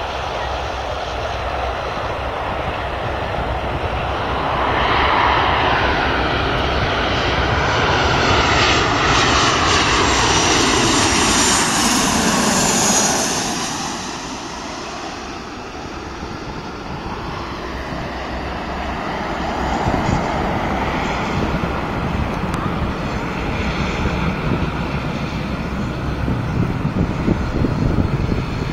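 Boeing 737's CFM56 turbofan engines on landing approach. The jet noise grows louder as the aircraft passes low overhead, peaking about ten seconds in with a high whine, and falls in pitch as it passes. A receding rumble follows as it flies on toward touchdown.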